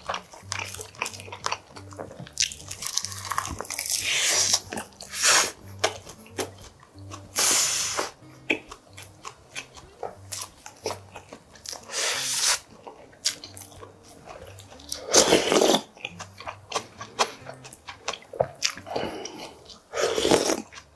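Close-miked eating sounds: wet chewing and smacking with many small mouth clicks, broken by several loud slurps of galbitang (beef short-rib soup) broth, the last from a wooden spoon near the end.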